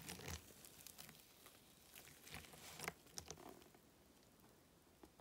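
Thick wet paste pouring onto a dry block of floral foam, making faint irregular wet patters and crackles as it lands and soaks in.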